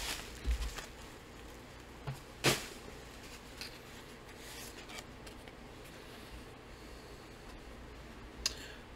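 Quiet handling of a hardcover book and its cardboard mailer: a few soft knocks and taps, the sharpest about two and a half seconds in, over faint room hiss.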